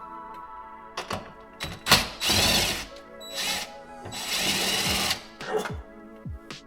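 Background music over two loud bursts of a power tool, each about a second long, with several knocks and clunks of car interior parts being removed.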